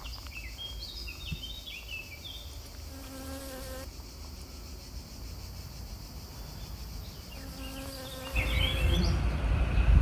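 Honeybee buzzing in flight close by, two short buzzes about three and seven and a half seconds in. Small birds chirp in the background near the start and near the end, and a low rumble comes up about eight seconds in.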